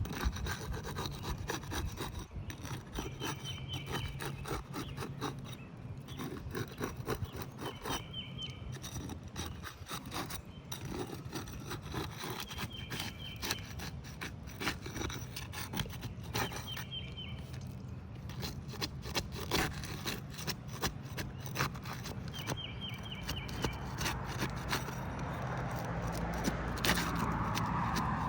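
Three-tab asphalt shingles being pried loose from their sealant strip: irregular scraping and rubbing with many small crackles. The brittle, wind-damaged shingle is beginning to crack as the seal is broken.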